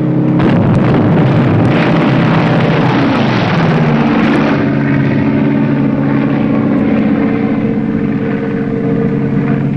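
Gunfire rattles over the drone of a propeller float plane's engine for the first few seconds. The engine's pitch drops as the plane passes, then drones on steadily.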